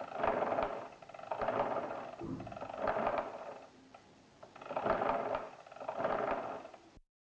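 Arithmometer mechanical calculator being cranked: each turn of the handle is a whirring, clicking run of its gearing, repeated about five times roughly a second apart, then cut off abruptly near the end.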